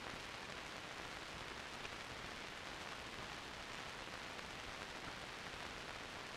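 Steady hiss of an old film soundtrack, with no distinct sound events.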